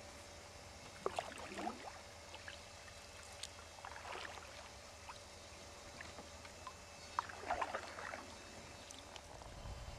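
Canoe paddle strokes in calm water: three soft splashes with dripping, about three seconds apart, as the paddle blade dips in and lifts out.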